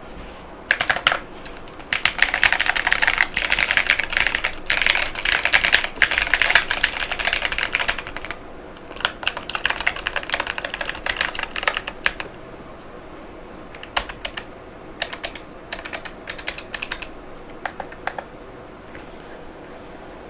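Typing on a HYTE Keeb TKL mechanical keyboard with Outemu Panda switches and PBT Cherry-profile keycaps. Fast, continuous keystrokes for about ten seconds, then a few short scattered groups of strokes that stop about two seconds before the end.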